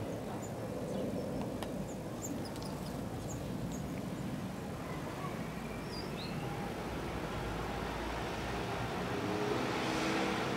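Steady outdoor background rumble like distant road traffic, with a few faint, short bird chirps and peeps in the first half.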